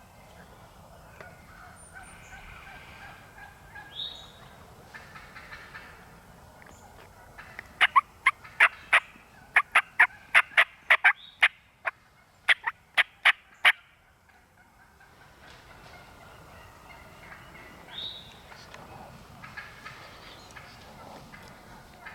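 Turkey calling: a rapid run of about sixteen sharp, loud notes over some six seconds in the middle, with fainter calls before and after.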